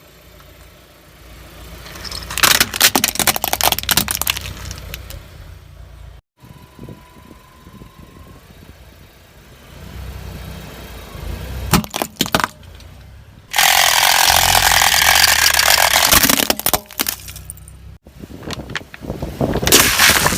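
A Maruti Suzuki car's engine running low while its tyre rolls over objects and crushes them, with bursts of crackling and snapping, and one longer loud crunching rush about two-thirds of the way through. The sound breaks off abruptly twice as one crush gives way to the next.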